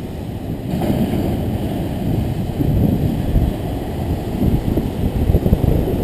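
Wind buffeting the microphone in uneven gusts, over the rumble of big ocean waves breaking and foaming on rocks.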